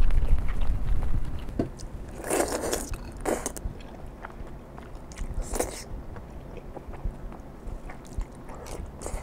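Close-miked eating of spicy glass noodles: slurping strands in and chewing. There are sharp slurps about two, three and five and a half seconds in, and a low rumble near the start.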